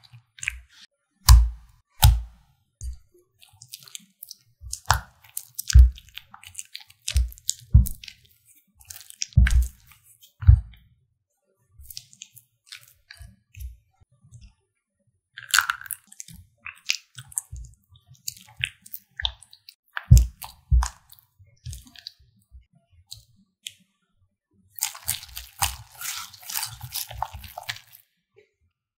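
Silicone spatula stirring and scraping a cream cheese mixture in a glass bowl: wet squishing with irregular knocks and taps against the glass. Near the end, a wire hand whisk beats the mixture in quick, continuous strokes for a few seconds.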